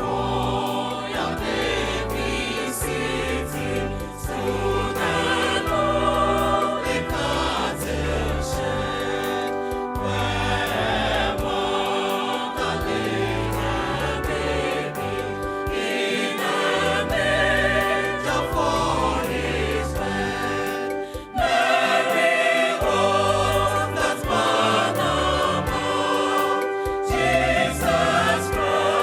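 Gospel choir singing over an instrumental backing with a steady beat and bass line.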